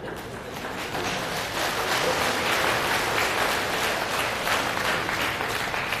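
Audience applauding in a large hall, the clapping swelling about a second in and fading near the end.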